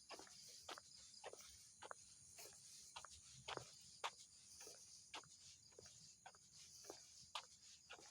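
Faint, irregular clicking, about two or three sharp clicks a second, over a steady high hiss.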